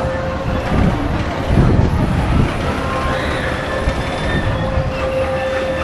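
Amusement-park ride machinery running, a steady hum with one held tone, with a louder low rumble about one and a half seconds in that lasts about a second.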